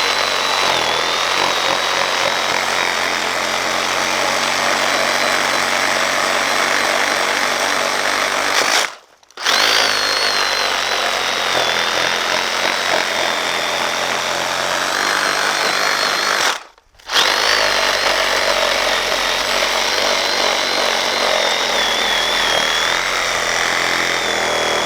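Cordless Sawzall reciprocating saw cutting through the fibrous trunk of a dead hala tree, its motor whining steadily. It runs in three long stretches, stopping briefly twice, about 9 and 17 seconds in.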